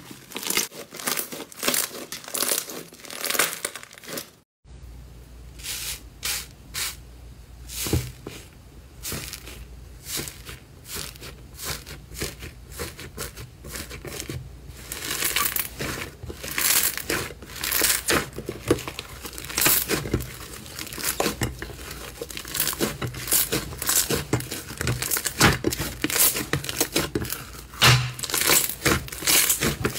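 Hands squeezing, stretching and tearing slime, making dense, irregular crackles, pops and sticky tearing sounds. The sound drops out briefly about four seconds in. It then goes on as a thicker slime is pressed and pulled apart in a glass dish.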